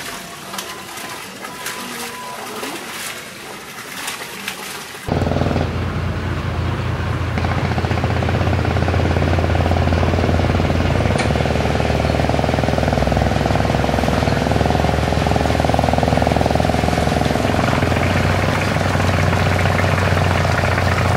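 A passenger boat's engine running loud and steady with a low chugging, coming in abruptly about five seconds in. Before that there is only quieter harbour background with a few light clicks.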